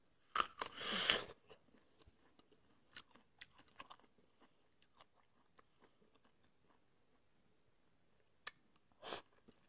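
A bite torn from a raw prickly pear cactus pad about half a second in, lasting about a second. Then faint, scattered chewing clicks, and two short bites near the end.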